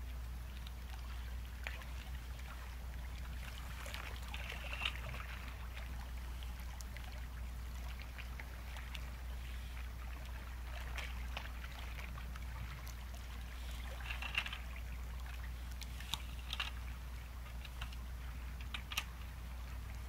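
Sea waves at a cape: a steady wash of surf with scattered short crackles and splashes, a few sharper ones near the end, over a low steady rumble.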